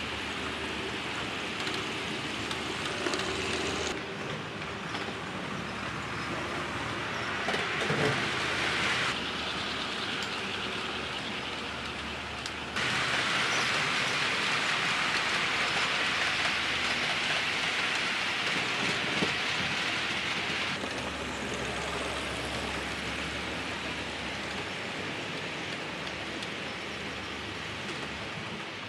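HO-scale model trains running on the layout: a steady whirring hiss of small motors and wheels on the track, with a few faint clicks. The sound level jumps abruptly several times.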